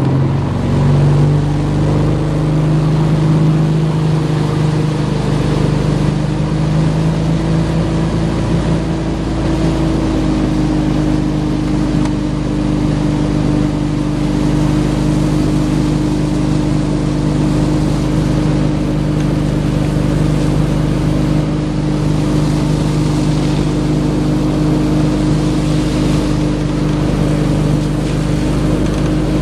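Ski boat's engine running steadily under load while towing a water skier, with the rush of wind and water. Its pitch shifts a little during the first ten seconds, then holds steady.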